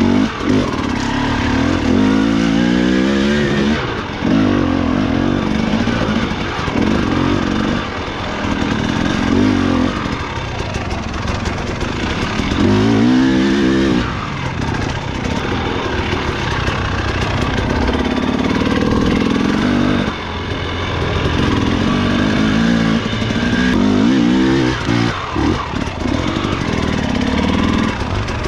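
Enduro dirt bike engine revving up and down over and over, the pitch rising with each burst of throttle and dropping back every second or two.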